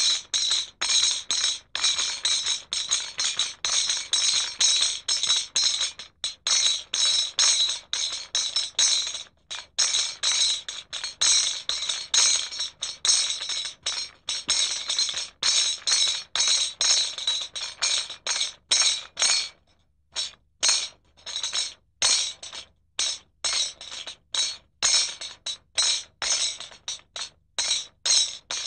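Rhythmic jingling shakes of a percussion sound, a few to the second, packed close at first and breaking into shorter separate shakes with gaps in the last third.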